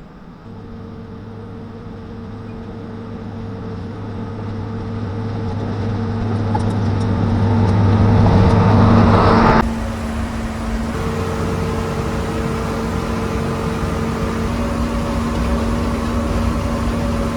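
Heavy diesel engine running and growing steadily louder as it approaches. About two-thirds of the way through it breaks off abruptly and gives way to another steady engine running.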